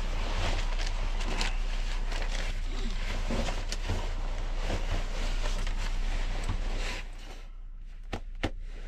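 Jacket fabric rustling and crinkling as it is handled close up, over a steady low hum. The rustling stops about seven seconds in, and two sharp clicks follow near the end.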